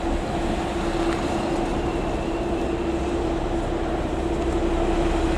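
Yellow railway track maintenance machine running past on the rails, a steady engine drone with a constant hum over a low rumble.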